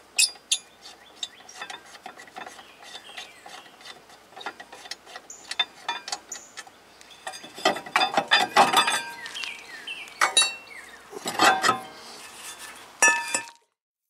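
Metal clinking and scraping as a car's brake rotor and caliper bracket are handled and wiggled on the wheel hub, with scattered light clicks and two busier runs of clanking about halfway through and again near the end; it cuts off abruptly.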